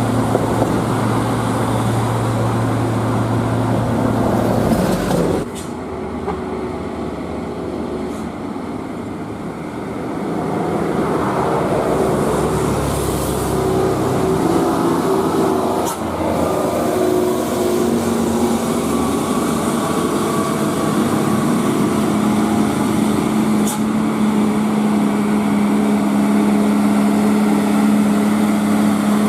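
Heavy truck diesel engines running on a climb. The sound changes abruptly about five seconds in, and a steady engine drone grows stronger in the second half.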